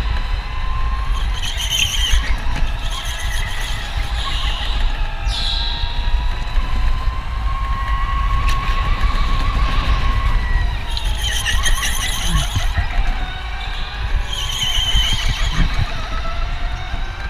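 Electric indoor go-kart at race pace, heard from onboard: the motor's whine rises and falls with speed over a steady low rumble, and the tyres squeal in several bursts as the kart slides through the corners.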